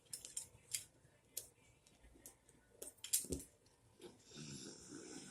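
Lego plastic bricks clicking and tapping as small pieces are handled and pressed together, in scattered single clicks. About four seconds in, a soft breathy noise runs for about a second.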